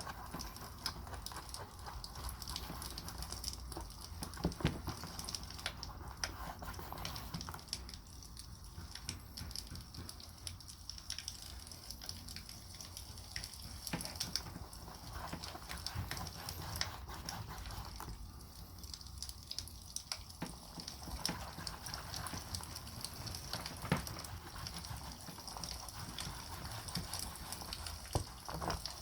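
Wood campfire crackling: irregular sharp pops and snaps over a faint steady hiss.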